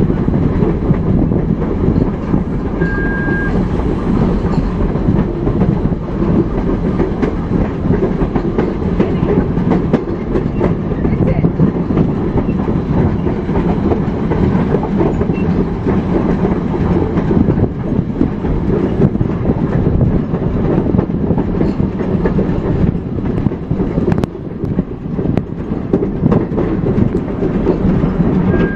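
Steam train running along the track: a loud, steady rumble with fine rattling from the wheels and cars, heard close beside the locomotive.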